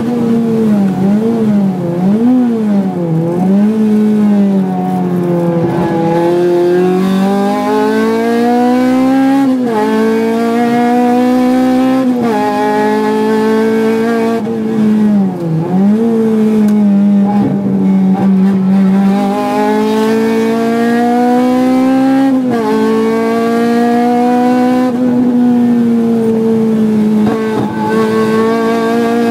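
Honda Civic Type R FD2R's four-cylinder K20A engine heard from inside the cabin at race pace on a circuit. Revs climb hard through the gears with sudden drops at the upshifts, and in a few places the pitch swings quickly up and down as the driver blips the throttle on downshifts into corners.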